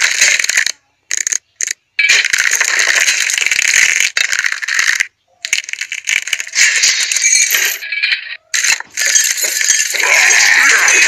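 Sound effect of skeleton bones rattling and clattering, in several dry bursts broken by short silences.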